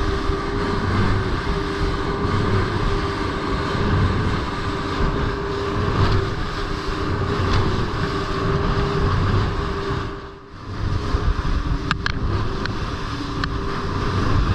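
Motorboat engine running steadily under way, with a constant drone that dips briefly about ten seconds in.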